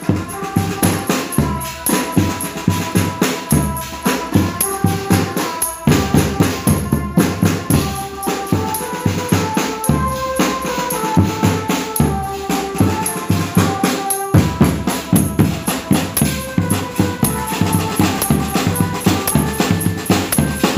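Street drum band beating a fast, busy rhythm on marching bass drums and other drums, with a melody line of held notes playing over it.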